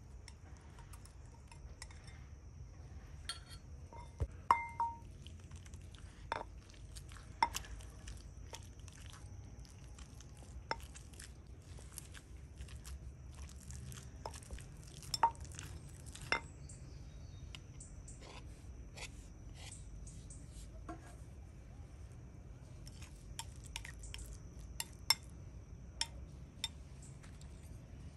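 Scattered clinks and clicks of utensils against dishes, irregular and a few seconds apart. One, a few seconds in, rings briefly. A faint steady high-pitched whine runs underneath.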